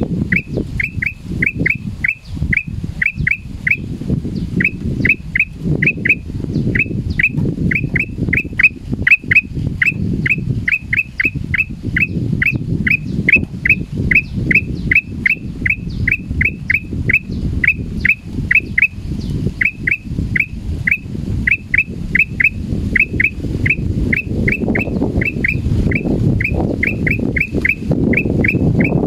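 Male black-crested bulbul giving a long string of short, sharp alarm notes, about three a second in runs with brief pauses, the call of a frightened bird. A steady low rumble runs underneath.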